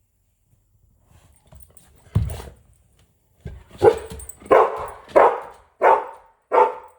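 An animal making a run of short, evenly spaced calls, about one every two-thirds of a second, starting about three and a half seconds in, after a single louder sound just past two seconds.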